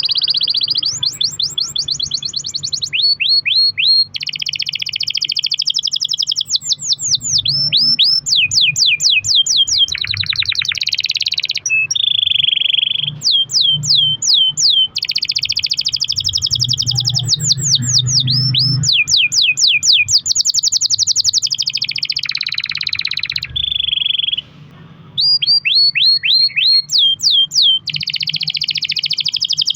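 Domestic canary singing a long, continuous song of rapid trills and rolls, with runs of fast repeated downward sweeps, broken by one short pause about three-quarters of the way through.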